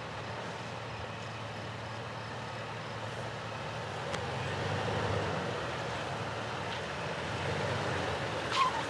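Toyota 4Runner's engine running steadily at low revs in four-low as it crawls onto rocks, swelling slightly with throttle about halfway through and again near the end. A short high sound that falls in pitch comes near the end.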